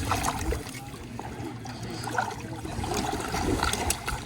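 Shallow water trickling, with small scattered splashes as it is stirred by hand.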